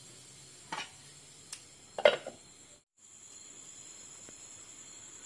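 A metal ladle knocks against the kadai twice, the second knock, about two seconds in, the loudest. After a brief cut, oil fries steadily, with a constant high-pitched trill over it.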